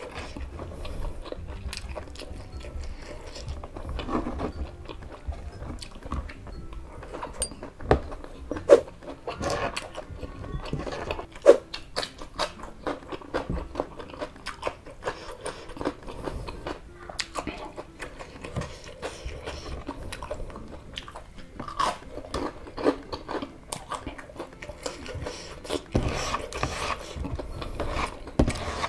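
Close-up crunching and chewing of crispy breaded chicken nuggets (Kanzler) with sambal and rice: irregular crisp crackles between wet chewing, with a few louder crunches about nine and twelve seconds in.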